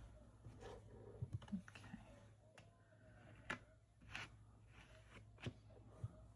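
Faint, scattered light clicks and taps, about half a dozen, from small nail-art tools being handled, over a low steady hum.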